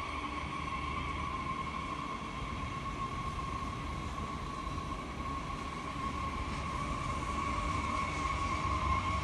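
SNCF train at a station: a steady high-pitched whine over a low rumble, growing a little louder in the last few seconds.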